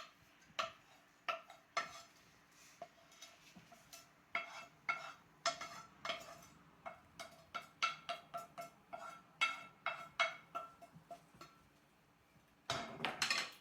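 A utensil clinking and scraping against a pan or dish in quick, irregular taps, each with a short ring, as cooked onion and celery are spooned out. A louder scraping rush comes near the end.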